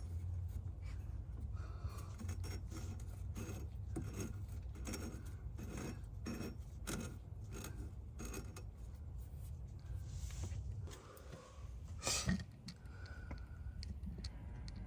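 Metal hand tools being handled: irregular clicks, clinks and scraping, with one louder knock about 12 seconds in.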